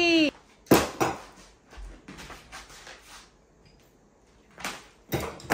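Metal parts of an old door lock clicking and clinking as they are handled at the door while it is taken apart: two sharp clicks about a second in, faint taps after, and two more sharp clicks near the end.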